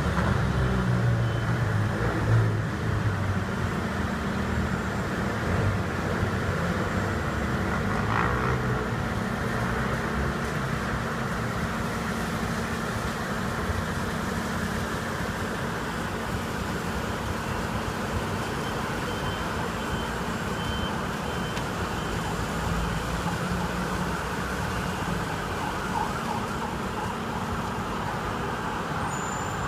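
Heavy construction machinery, an excavator and a concrete mixer truck, running steadily with a low engine drone.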